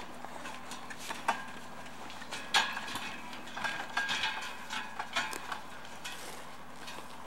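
Wooden handcart being pulled over rough ground: irregular knocks and clanks from the cart and its load. The loudest is about two and a half seconds in, with a cluster of smaller ones over the next three seconds.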